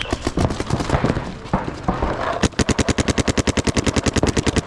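Electronic paintball markers firing off the break. Scattered shots come first, then one marker fires a fast, even string of about a dozen shots a second from about halfway through.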